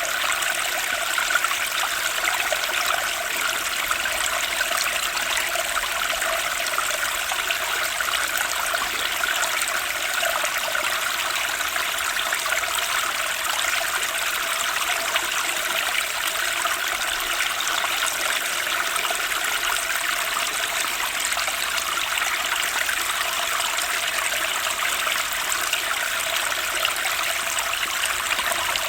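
Turbulent spring stream, water rushing steadily without a break.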